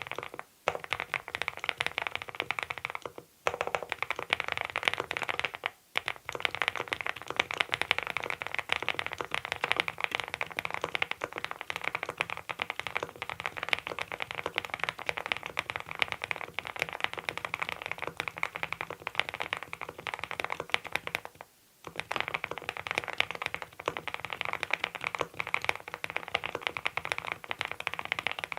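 Fast, continuous typing on the Monstargear Ninja87 Pro ALU, an aluminium-cased mechanical keyboard fitted with Adelie switches: a dense run of key clacks with brief pauses about half a second, three seconds, six seconds and twenty-two seconds in.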